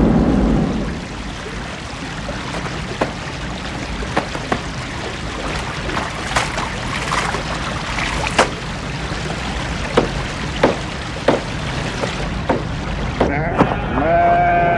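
A shallow mountain stream running, with repeated sharp splashes and slaps as cloth is dunked and wrung out in it. Near the end, livestock start bleating.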